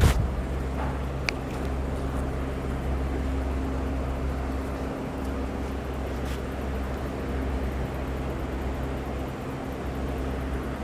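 A steady electrical hum that holds at one level. A sharp click at the very start is the loudest sound, and a smaller click follows about a second later.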